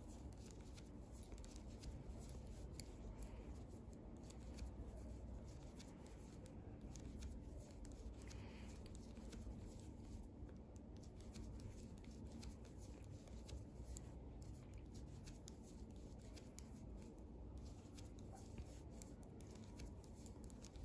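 Faint, irregular clicking and scraping of metal knitting needles as stitches are knitted, over a low room hiss.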